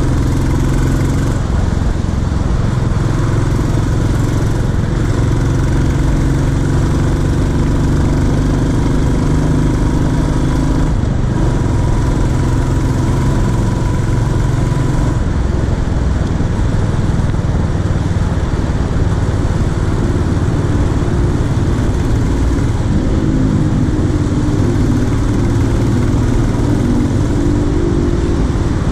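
Royal Enfield Classic 350's single-cylinder engine running steadily as the motorcycle is ridden at cruising speed.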